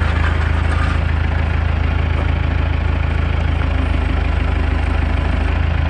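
Forklift engine idling steadily as it holds the chained engine being hoisted out of the car.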